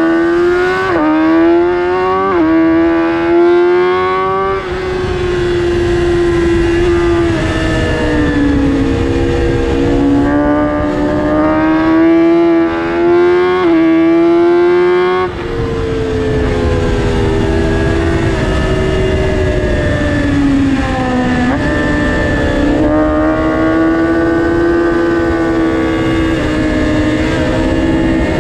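2022 BMW S1000RR's inline-four engine at full race revs, heard from on board. The pitch climbs and drops sharply with two quick upshifts in the first few seconds, then sinks and rises again several times as the bike brakes and accelerates through corners.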